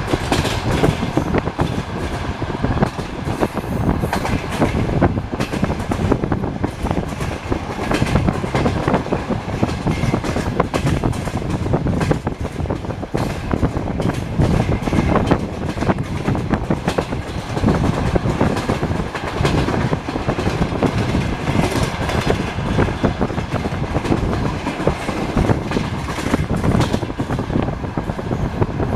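Passenger train carriage running along the track, heard from inside the carriage: a steady rumble with the clatter of wheels over rail joints.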